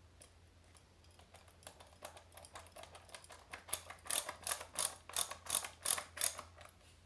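Ratcheting hand screwdriver clicking as it tightens a screw into the plastic bottom plate of a CPAP machine. The clicks are faint at first, then grow louder about four seconds in, coming about three a second, and stop shortly before the end.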